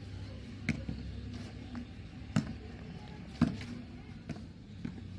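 A volleyball being hit back and forth in a rally: a series of sharp slaps of hand on ball, five in all, the loudest about three and a half seconds in.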